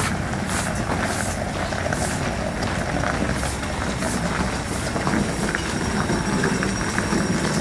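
Bus riding along, heard from inside: a steady low engine and road rumble, with light rattles now and then.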